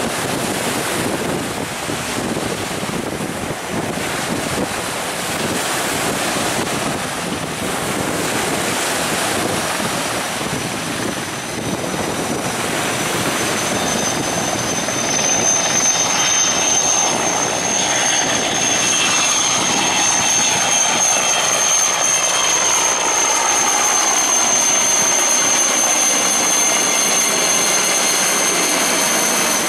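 Sikorsky S-64 Skycrane helicopter hovering low over the sea while its snorkel draws up water, the rotor and turbine noise mixed with spray and wind. About halfway through a high, steady turbine whine comes to the fore, and lower tones slide downward as the helicopter climbs away and passes.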